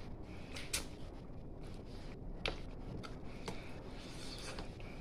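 A person eating tender braised pork head adobo by hand: quiet wet chewing and lip smacking, with a few sharp mouth clicks scattered through.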